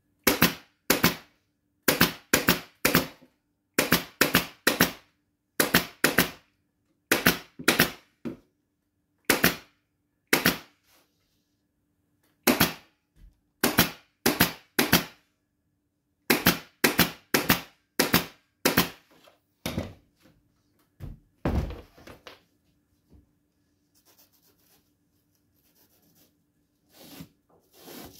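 Pneumatic upholstery staple gun firing staples into a wooden chair frame through foam padding, each shot a sharp snap, in quick runs of two to four shots for the first twenty seconds or so. Then a single dull thump, and a few faint soft handling sounds near the end.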